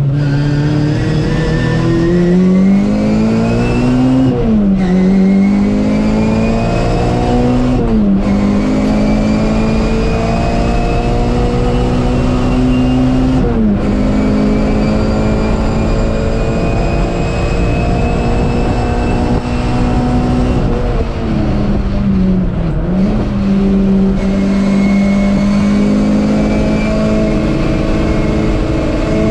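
MG Metro race car's four-cylinder engine running hard, heard from inside the cabin, with road noise beneath. The engine note climbs and holds steady for long stretches, dipping sharply and recovering about four times.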